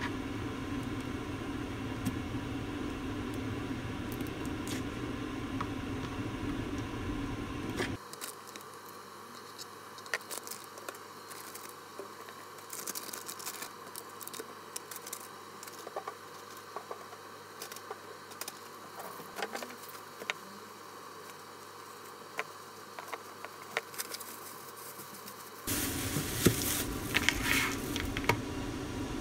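Kitchen prep handling at a plastic cutting board: scattered small knife taps and clicks as shrimp and sealed plastic food pouches are handled, then louder crinkling of a plastic bag of glass noodles near the end. A steady background hum drops away after about eight seconds and returns near the end.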